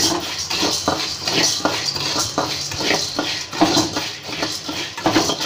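A ladle repeatedly scraping a metal kadai while stirring split chana dal, which is being dry-roasted without oil, so the dry lentils rasp and rattle against the pan. The scrapes come in quick strokes, a few a second.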